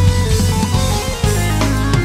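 Instrumental band piece with electric bass, guitar, keyboards and drums playing together, the bass notes prominent.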